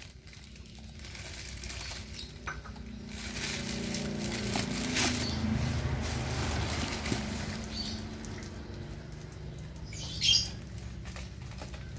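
Plastic parcel wrapping, packing tape and a cardboard box being handled and cut open, with irregular crinkling, rustling and scratching. A louder, sharp crackle comes about ten seconds in.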